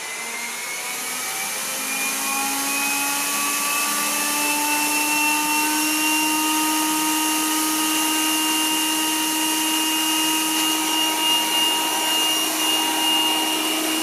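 Yeedi Mop Station Pro robot vacuum's suction fan running at Max Plus, its strongest setting. The whine rises in pitch over the first few seconds as the motor spins up, then holds steady over a constant rushing hiss.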